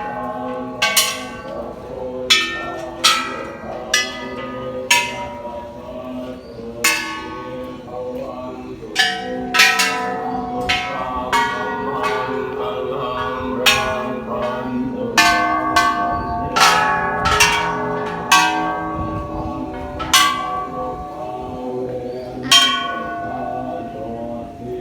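Large temple bells struck one after another, about twenty strikes at uneven intervals, each ringing on and fading with its own pitch as successive bells along a stairway are rung.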